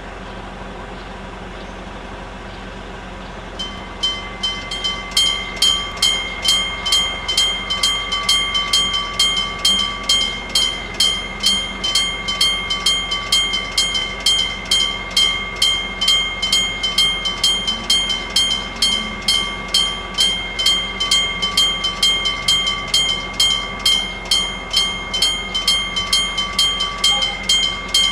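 Electric bell of a Japanese railway level crossing (a hammer-struck gong-type warning bell) starting to ring about four seconds in, then striking evenly at a little over two strikes a second with a bright metallic ring, signalling an approaching train.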